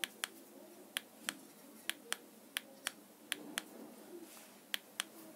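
About a dozen sharp clicks, often in close pairs, as remote control buttons are pressed to step down a TV channel list.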